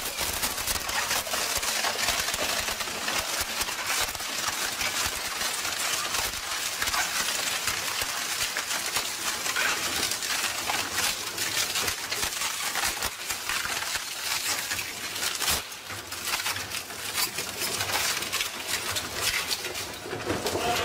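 Industrial twin-shaft shredder's hook blades tearing wooden planks apart: a dense, continuous crackling of snapping and splintering wood.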